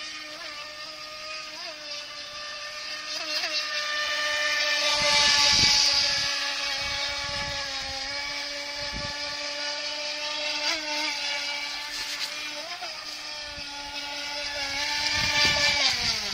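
Feilun FT009 RC speedboat's brushed electric motor whining at speed across the water, the pitch holding fairly steady with a few brief blips and the sound swelling louder twice. Near the end the whine drops quickly in pitch as the boat slows.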